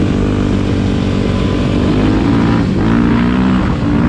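Kawasaki dirt bike's single-cylinder engine running under way, its revs dipping and then climbing again about two and a half to three seconds in.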